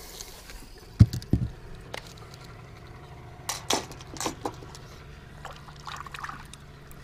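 Water splashing and trickling at the side of a fishing boat, with a sharp knock about a second in, a few lighter clicks and knocks, and a faint steady low hum underneath.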